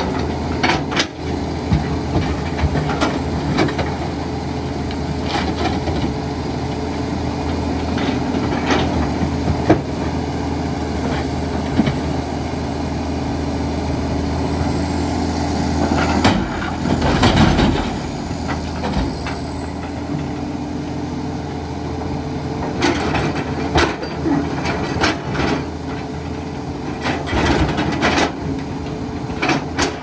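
Excavator's diesel engine running steadily, with scattered knocks and clanks of the machine at work. A louder rush of noise comes about seventeen seconds in.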